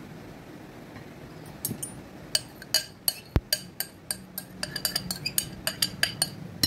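Metal spoon clinking against a glass jar and glass mixing bowl while liquid cake batter is emptied into the dry ingredients: a quick, uneven run of sharp glassy taps starting about a second and a half in.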